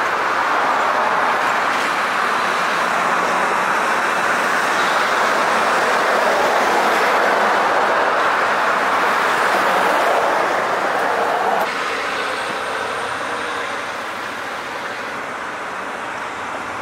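Steady city street traffic noise: cars and buses running past, an even rushing sound of engines and tyres. The level drops abruptly about twelve seconds in, then the traffic noise goes on more quietly.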